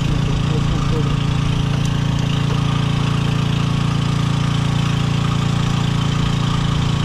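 A machine running steadily with a constant low hum, with a few faint tool clicks in the first second.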